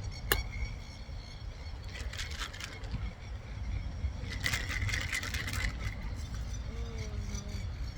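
A steady low rumble, with a sharp click just after the start and two short spells of clattering, about two seconds in and again from about four and a half to six seconds in.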